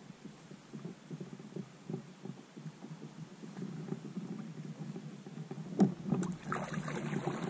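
Low, irregular knocks and bumps of gear being handled on a fishing kayak's hull, with one sharper, louder knock about six seconds in as the paddle is shifted.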